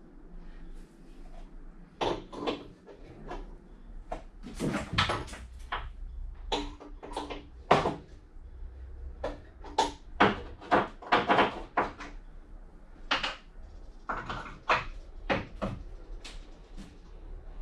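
Irregular knocks and clanks of hand-tool work on boat hardware, some sharp and loud, coming in quick clusters with short gaps.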